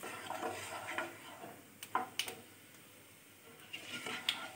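Fennel seeds crackling in hot oil in a kadai: scattered light pops and ticks that die down for about a second midway. Near the end a wooden spatula stirs them, with more clicks.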